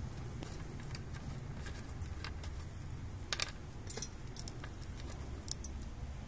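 Small wooden twigs dropped one by one into a metal hobo stove, giving scattered light clicks and clinks, the loudest a quick pair about three seconds in. A low steady rumble runs underneath.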